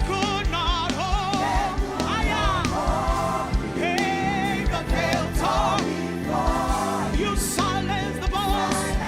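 Gospel worship song performed live: a lead singer singing with vibrato over a band with bass and a steady drum beat.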